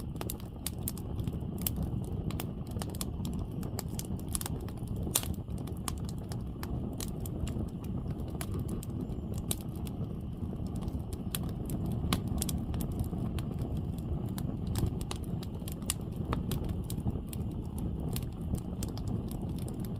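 Wood bonfire burning: irregular sharp crackles and pops from the burning firewood, several a second, over a steady low rumble.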